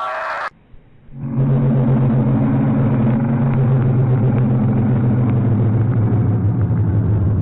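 A loud, steady low droning alarm tone with a rumble underneath, starting about a second in after a brief gap: a deep emergency-alert-style alarm sound.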